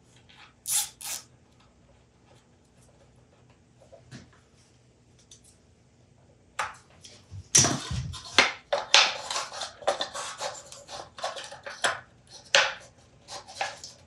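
Handling noise at a workbench: two sharp clicks about a second in, then from about halfway a dense run of rustling, clattering and knocks as power cords and small parts are handled around the bandsaw's wooden switch housing.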